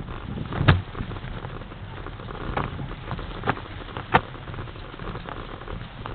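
Mountain bike ridden over a snow-covered woodland trail: steady tyre and riding noise with the bike and camera rattling, broken by sharp knocks over bumps, the loudest a little under a second in and just after four seconds in.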